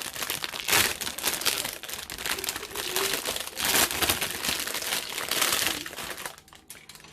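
Model kit packaging crinkling and rustling as it is handled and pulled apart, dying down about six seconds in.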